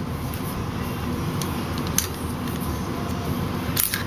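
Metallic clicks of an ArmaLite M-15 (AR-type) rifle's upper receiver and bolt carrier being handled: one sharp click about halfway and a quick cluster of clicks near the end, over a steady low hum.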